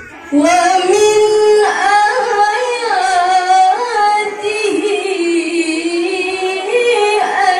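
A woman reciting the Qur'an in the melodic tilawah style into a microphone: long held notes with ornamented turns, starting about half a second in.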